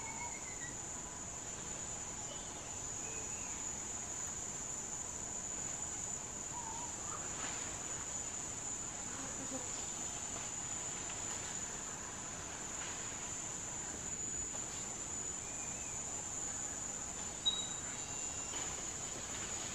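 Steady, high-pitched insect drone of a forest insect chorus, with a few faint short bird chirps and a single sharp click about three quarters of the way through.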